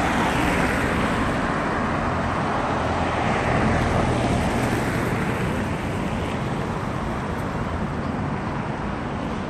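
Street traffic: cars and vans driving past with a steady wash of tyre and engine noise, swelling as vehicles go by near the start and again about four seconds in.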